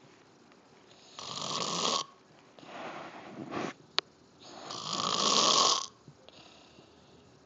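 Snoring: two loud snores about three and a half seconds apart, with a softer breath between them and a brief sharp click near the middle.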